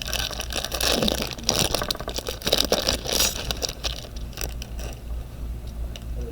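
Crinkling and tearing of a trading card pack's foil wrapper as it is opened, a dense crackle that dies down about four seconds in to a few faint clicks of handling.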